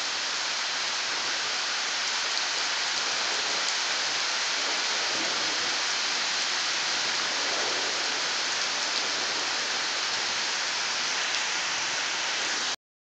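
Steady rain falling: an even hiss with faint scattered drop ticks. It cuts off abruptly near the end.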